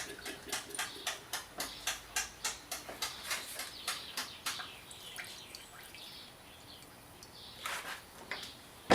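A Homelite chainsaw's primer bulb pressed quickly over and over, about three or four clicks a second, pushing the old fuel out of the fuel system. The pumping stops about five seconds in, and there is a brief rustle near the end.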